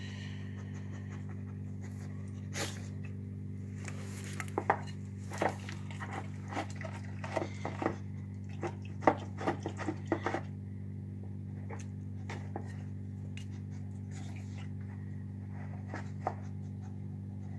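Dog eating wet canned dog food from its bowl: a run of short wet smacks, licks and clicks, densest from about four to ten seconds in, then only a few. A steady low hum runs underneath.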